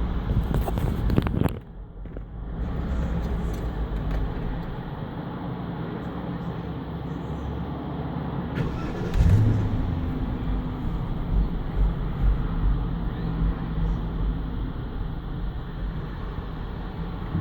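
BMW 750Li's 4.8-litre N62 V8 idling rough with misfires while partly warm, as it changes over to VANOS operation. About nine seconds in there is a loud surge as the engine is restarted, and it then idles on.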